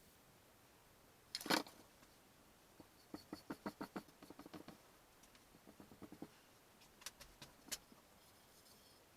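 A sharp knock, then runs of quick light clicks and taps, several a second, from small hard objects being handled; no motor is running.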